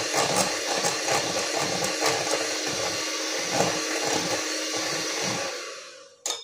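Electric hand mixer running steadily, its beaters churning cream cheese batter with a freshly added egg in a glass bowl. The motor winds down and stops near the end, followed by one sharp click.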